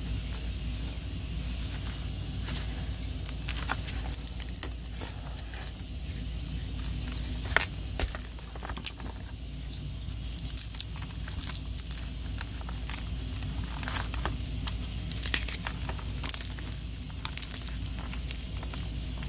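Glitter-painted chalk block being snapped and crumbled by hand: a dense run of dry crackles and crunches from the crisp painted shell and powdery chalk, with one louder snap about seven and a half seconds in.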